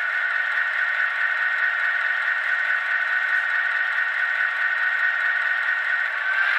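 LokSound sound decoder in an HO scale GP9 playing its EMD 567 prime mover idle through a small 8-ohm speaker: a steady, tinny sound with a few held high tones and no bass.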